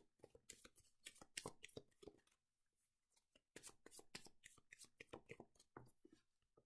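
A deck of Lenormand cards shuffled by hand: faint, quick runs of card flicks in two bursts with a short pause between.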